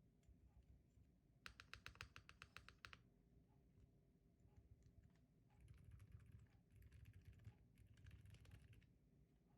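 Typing on a Sugar65 mechanical keyboard with Outemu silent white linear switches, lubed with Krytox 205g0: soft, damped keystrokes. A fast run of sharper strokes, about ten a second, comes about a second and a half in, and gentler clusters of keystrokes follow in the second half.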